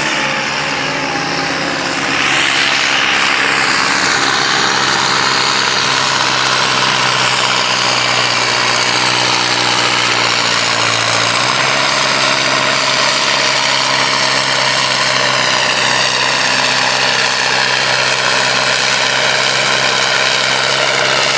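Massey Ferguson tractor's diesel engine running hard and steadily under heavy load as it drags a weight-transfer pulling sled.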